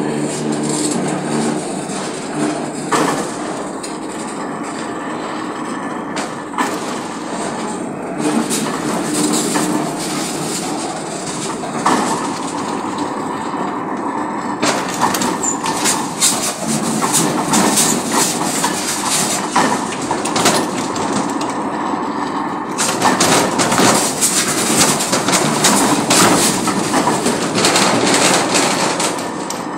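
Iron karahi blank spinning on a metal-spinning machine, with steel rollers pressed against its face: a steady metal-on-metal grinding rasp broken by many sharp clicks and scrapes. It grows louder about three-quarters of the way through.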